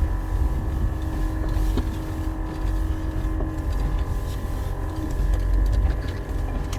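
Jeep Wrangler JK driving slowly over a rough off-road trail: a steady low rumble of engine and tyres with a constant hum and a few light knocks.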